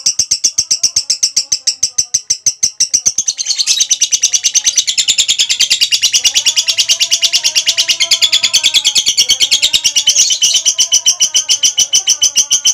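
Female lovebird's ngekek: a long, unbroken chatter of sharp high notes, about ten a second, becoming fuller about three and a half seconds in.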